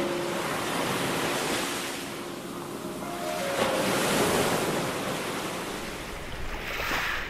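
Sea waves surging and washing in slow swells, rising and falling over a few seconds, with a few soft held music notes near the start and about three seconds in.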